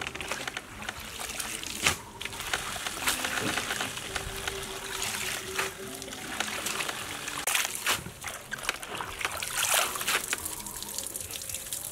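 Chopped cabbage being washed by hand in a metal basin of water: repeated splashing and dripping as the wet leaves are stirred, squeezed and lifted out.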